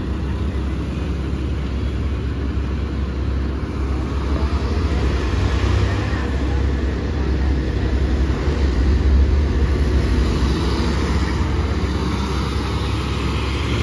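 Diesel engine of a Sany SY240C crawler excavator running steadily under load as it climbs its tracks onto a low-bed trailer, with a truck passing on the road partway through.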